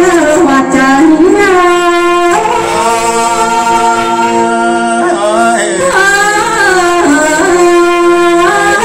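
A woman singing a Tai (Thái) folk song into a handheld microphone, in a solo voice with sliding, ornamented phrases and long held notes.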